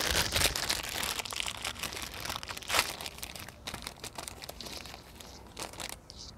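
Thin clear plastic bag from an oil filter kit crinkling and rustling as gloved hands open and handle it, with one sharper crackle about three seconds in.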